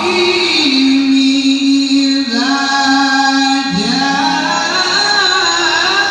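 A reciter's voice chanting Qur'anic tilawah in long held melodic notes, sliding from one pitch to another between them.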